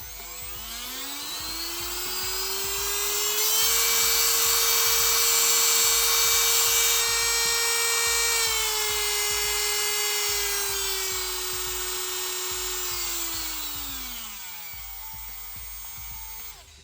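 Worx MakerX brushless rotary tool running: its whine rises as the motor spins up, holds at high speed, drops a step about eight seconds in, then winds down near the end.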